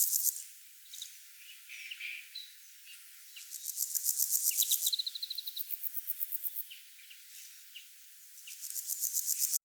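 Cricket in dry grass trilling in bursts of rapid, evenly spaced high-pitched pulses, with short pauses between bursts; the sound cuts off abruptly near the end.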